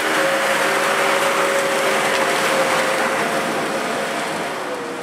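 4x4 SUV engine running at steady high revs as it drives through mud, with a constant whine over a rushing noise; the sound fades gradually and the pitch drops slightly near the end as the vehicle pulls away.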